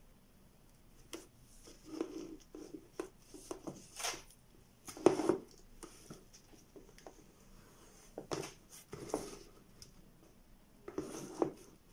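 Black electrical tape being pulled off its roll and wrapped around paper-and-masking-tape horns: irregular peeling rasps with rustles and taps of handling, the loudest about five seconds in.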